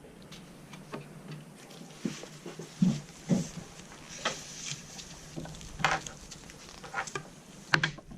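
BoreSnake pull-through cord being drawn through the barrel of a GSG-16 .22 rifle and handled: soft scraping and rustling with scattered light clicks and knocks.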